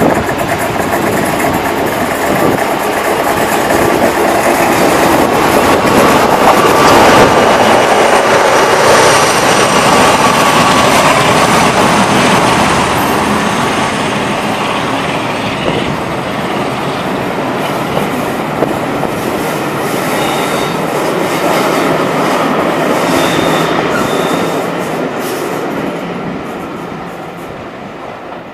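Two Class 47 diesel-electric locomotives, each powered by a Sulzer V12 engine, pull away and pass close by, loudest about seven seconds in. Their coaches then roll past on the rails, and the sound fades steadily near the end as the train moves away.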